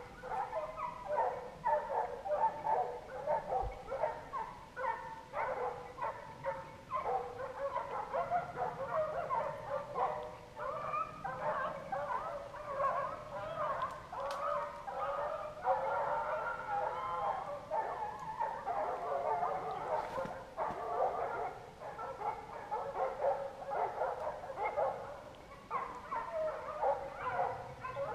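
A pack of boar-hunting hounds baying, many voices overlapping in a continuous chorus.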